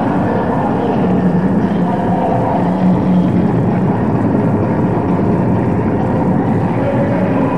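Loud dance music from the hall's PA speakers, picked up as a dense, steady, muddy wash of sound with no clear beat.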